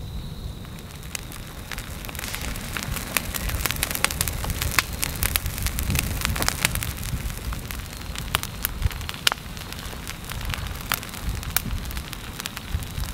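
Grass and ferns set alight by a lava flow, burning with dense sharp crackling and popping that thickens about two seconds in, over a low rumbling noise.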